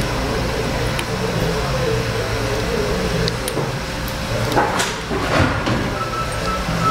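Steady low drone of shop machinery, with a few clicks and scrapes of a wrench working the bonnet nuts of a steel gate valve. Near the end a vehicle's reversing beeper starts.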